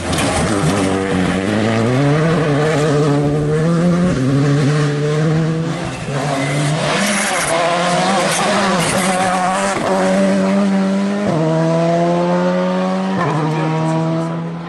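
Rally cars accelerating hard through the gears: the engine note climbs in each gear and drops sharply at each of several quick upshifts, at full throttle on a special stage.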